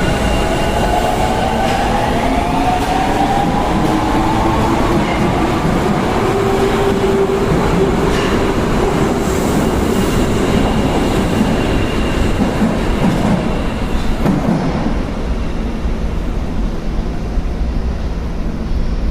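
Osaka Metro Tanimachi Line 22 series subway train running, its motor whine rising in pitch over the first few seconds and then holding steady over the rumble of the wheels. This car is singled out for an abnormal noise.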